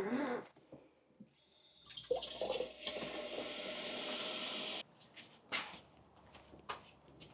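Water pouring in a steady stream for about three seconds, then stopping abruptly. There is a short loud sound just at the start and a few light knocks after the pour.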